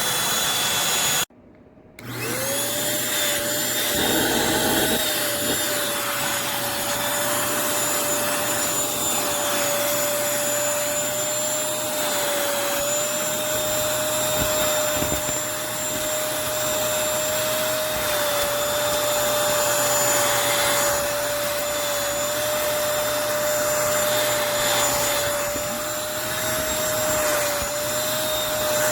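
Eureka NES212C corded stick vacuum running with a steady motor whine over rushing air. About a second in the sound cuts out briefly, and the motor whine climbs back up to speed as it returns.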